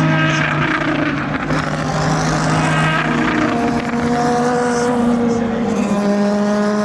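Endurance race car engines running on track, several at once. Their steady tones hold, then drop away and are replaced by new ones at other pitches as cars come and go.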